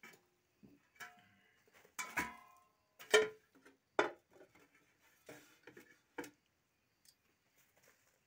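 A series of sharp clinks and knocks from a wire grill basket, a grill box, a plate and a fork being handled; one knock about two seconds in rings briefly.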